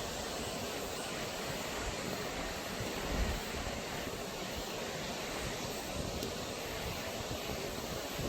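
Steady rushing of a valley stream's flowing water, an even wash of noise with a low, fluttering rumble beneath it.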